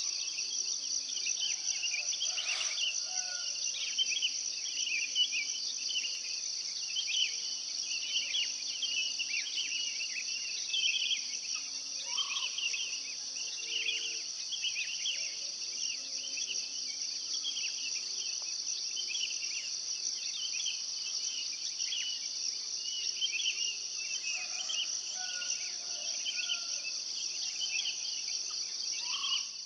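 Insect chorus in open scrubland: a steady, high shrill drone with many short chirps just below it in pitch. It cuts off suddenly at the very end.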